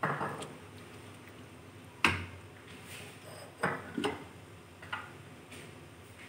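A pan of semolina halwa cooking, with a handful of sharp clicks and knocks at irregular spacing; the loudest is about two seconds in.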